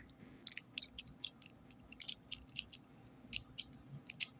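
Snake rake working in a Defender Security U-9949 wafer cabinet lock: faint, irregular metal clicks, about four or five a second, as the pick rakes across the wafers.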